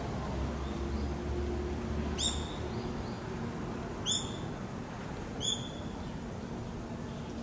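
Three short, high-pitched animal calls, each dropping slightly in pitch, spaced about one and a half to two seconds apart.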